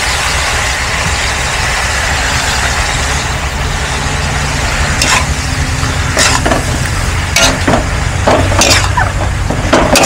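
Stir-fry of tofu and bamboo shoots sizzling in a metal wok, with a steady low hum underneath. From about five seconds in, a metal ladle scrapes and knocks against the wok several times.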